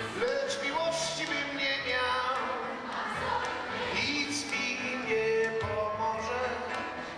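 A song performed live: singing with keyboard and music accompaniment.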